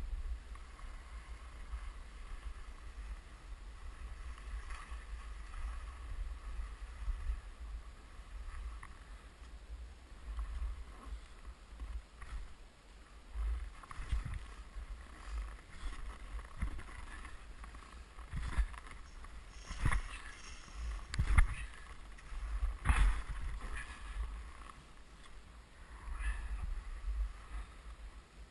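Skis sliding and scraping over snow, with wind buffeting the camera's microphone as a low rumble. A handful of louder, sharper scrapes or knocks come between about 13 and 24 seconds in.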